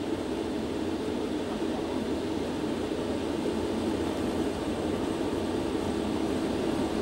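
Concorde flight-deck noise on the takeoff run: a steady rushing rumble of engines and airflow, heard from inside the cockpit.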